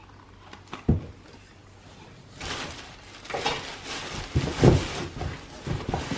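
Plastic vacuum parts and packaging being handled: a single knock about a second in, then a stretch of rustling and light clunks in the second half.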